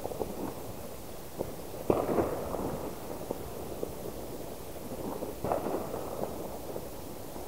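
Distant fireworks going off: a continuous muffled rumble of bangs and crackles, with the loudest bang about two seconds in and another strong one about five and a half seconds in.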